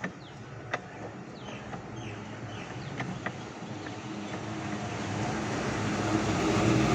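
A few sharp clicks and short falling bird chirps, over a rumble and hiss that grows steadily louder toward the end, like a vehicle approaching.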